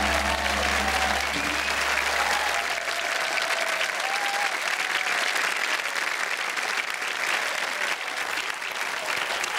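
Studio audience applauding steadily. A low hum underneath cuts out about four seconds in.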